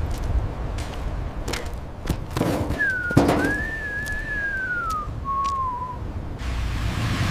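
A thin, high whistle-like whine that dips, rises and then slowly falls in pitch over about two seconds, followed by a shorter falling note. A few sharp knocks come before it, the loudest about three seconds in, over a steady low rumble.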